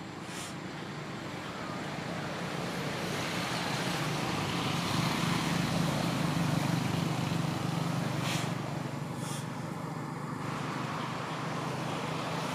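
A passing road vehicle's engine: a steady low hum that grows louder toward the middle, then slowly eases off.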